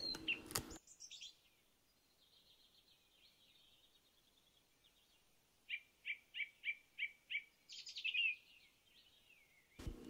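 A bird singing: faint high twittering, then a quick run of about eight short, evenly spaced chirps a little past the middle, followed by a brief burst of twitter.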